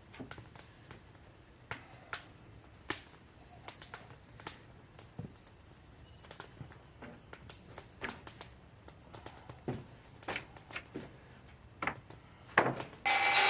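Scattered light knocks and clicks of cedar boards being handled, then near the end a power saw starts cutting through wood, loud and steady.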